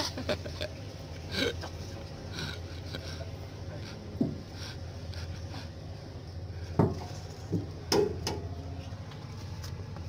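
A few scattered metal knocks and clanks as someone climbs onto the steel body of a motor grader and handles tools, over a steady low hum.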